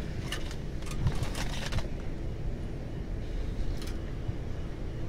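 Rustling and crackling of plastic and trash bags as a gloved hand rummages through a dumpster, over a steady low rumble.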